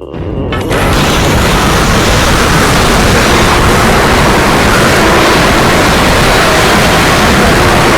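A loud, steady rushing noise like static, setting in just under a second in as a short musical snippet ends.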